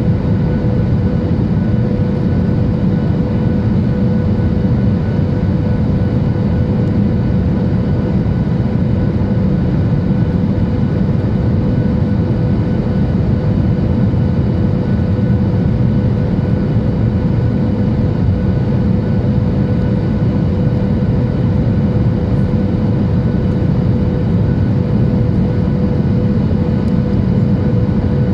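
Steady cabin noise inside a Boeing 737-800: the low rumble of its CFM56-7B jet engines and airflow, with a steady whine over it, unchanging in level.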